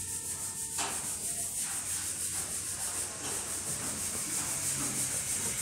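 Compressed-air gravity-feed spray gun hissing steadily as it sprays paint. The hiss grows fuller about a second in.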